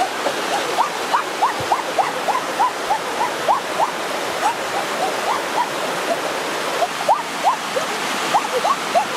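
Rushing water of a rocky stream spilling over low cascades, a steady hiss, with short rising chirps repeating two or three times a second over it.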